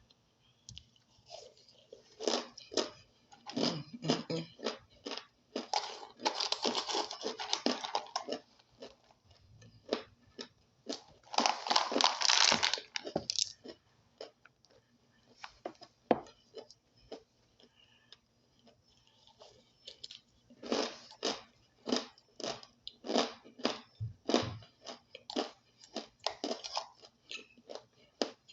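A person biting and chewing crunchy chunks of starch, crunching in clusters with a quieter pause midway, then a steady run of crunches two or three a second near the end.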